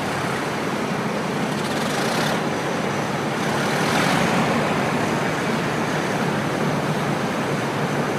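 Hovercraft's engines and lift fans running steadily, keeping it up on its air cushion: a dense rush of air over a steady low engine hum, swelling slightly about four seconds in.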